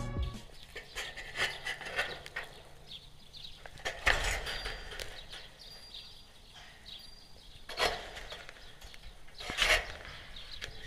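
Goats grazing and nosing right at the microphone: soft rustling and rubbing, with three short, louder scuffs a few seconds apart.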